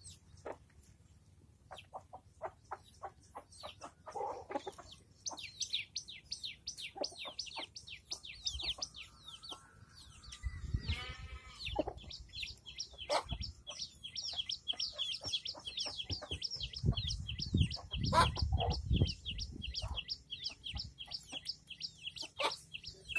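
Chick peeping continuously: a rapid run of short, high, downward-sliding peeps, several a second. Sharp taps in the first few seconds. An adult chicken calls once, lower, about halfway through.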